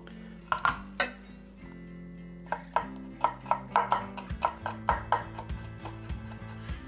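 Cleaver mincing garlic cloves on a bamboo cutting board: a few sharp knocks of the blade about half a second to a second in, then a quick run of chops at about four a second from about two and a half to five and a half seconds in.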